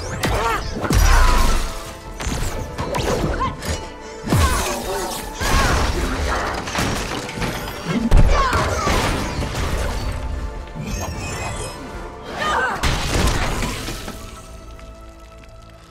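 Film fight-scene soundtrack: music under repeated crashes, smashing and shattering impacts as furniture and fixtures are broken. The impacts die down near the end, leaving quieter held music.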